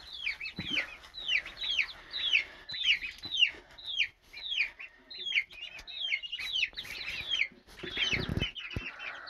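Baby chicks peeping: a steady run of high, downward-sliding peeps, several a second, from a group of birds. A low bump of handling noise comes about eight seconds in.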